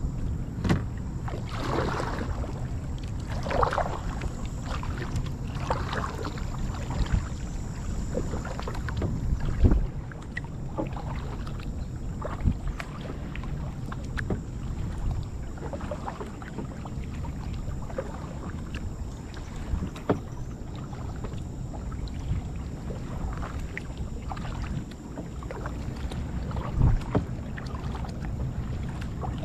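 Kayak paddle strokes dipping and swishing in the water about every two seconds for the first several seconds, over a steady low rumble of wind on the microphone, with a few sharp knocks later on.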